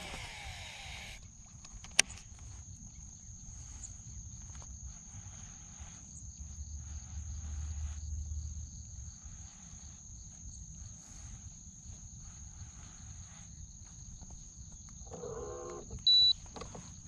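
A steady high insect chorus runs throughout. At the start a baitcasting reel's spool whirs as a cast goes out, followed by a sharp click about two seconds in. Near the end comes a short pitched burst, then a brief, loud, high beep.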